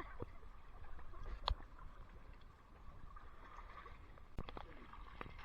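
Faint, steady hiss of rain falling on a swimming pool, with a few soft ticks.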